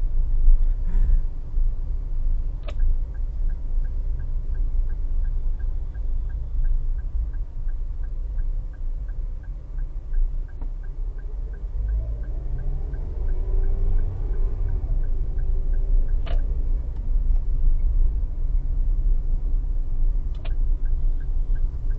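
Car driving in slow city traffic, heard from inside the cabin: a steady low rumble of engine and road. A light regular ticking, about two a second, runs for much of the time, and there are two sharp knocks, one a few seconds in and one past the middle.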